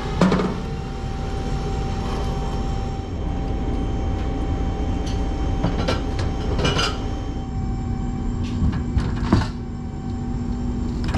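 Steady mechanical hum, with several sharp metal clanks and knocks about a second in, around six to seven seconds in, and again near the end as a dirt late model race car is rolled off a stacker trailer's lift gate into the upper deck.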